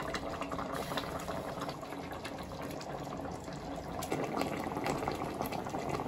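Kerala-style chilli fish-curry gravy bubbling at a boil in a pot, with soft wet plops as pieces of fish are slipped in; the bubbling gets louder about four seconds in.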